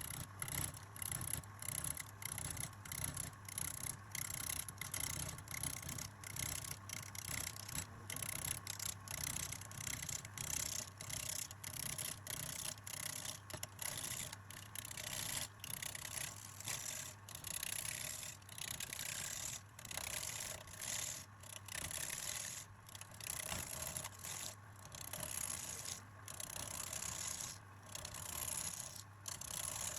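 A turning tool scraping and cutting wood on a lathe, in repeated short strokes with brief breaks between them.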